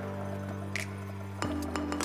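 Background music: sustained chords that change about a second and a half in, with light percussive clicks.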